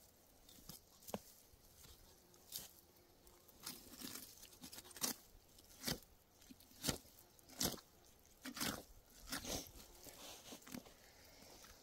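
A knife cutting hide and meat away from a black bear carcass, with the skin being pulled back from the ribs: short, sharp cutting and tearing sounds at irregular intervals, a dozen or so in all.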